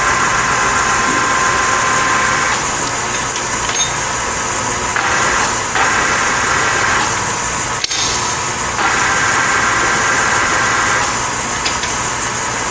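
Enco LG2080DS engine lathe running under power, a steady mechanical noise with a high gear whine that cuts in and out several times. A single sharp click comes about eight seconds in.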